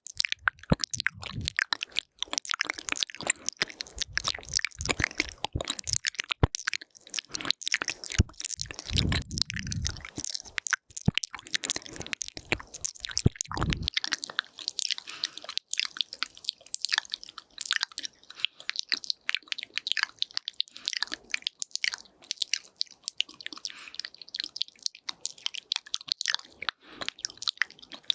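Close-miked ASMR mouth sounds into a binaural microphone: fast, wet clicks and smacks of tongue and lips, crackling densely. Deeper muffled thumps come and go through the first half, then stop about halfway.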